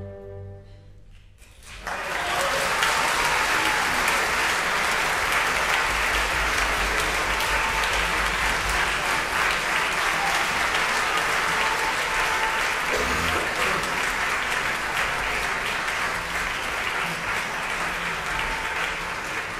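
The orchestra's last chord dies away, and after a short pause an audience breaks into loud applause about two seconds in, continuing steadily.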